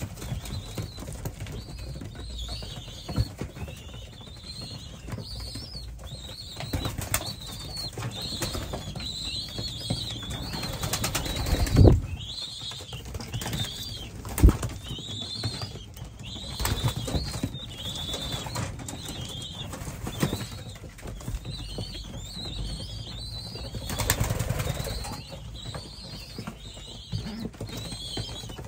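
Racing pigeons moving about in a loft: repeated bursts of wing flapping and feathers clattering as birds jostle and take off, with two loud sharp knocks a couple of seconds apart about halfway through. Short high chirping calls repeat throughout.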